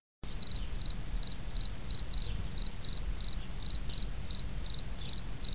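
Cricket chirping steadily, about three short high chirps a second, over a low background rumble; it cuts off suddenly at the end.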